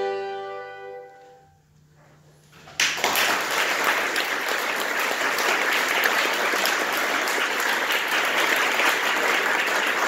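An accordion orchestra's final held chord dies away over the first second or so; after a brief hush, an audience breaks into steady applause about three seconds in.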